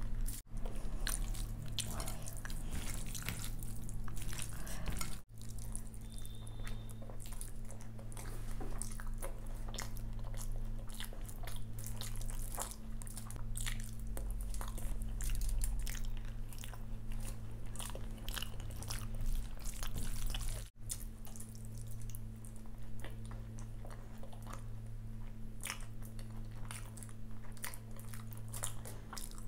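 Close-miked chewing of handfuls of curd rice mixed with vegetable bhaji: wet mouth sounds with many small clicks and lip smacks, over a steady low hum. The sound breaks off for an instant three times.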